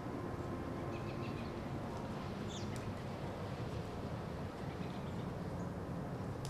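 Outdoor woodland ambience: a steady low rumble, with a few faint, short bird chirps about a second in and again about two and a half seconds in.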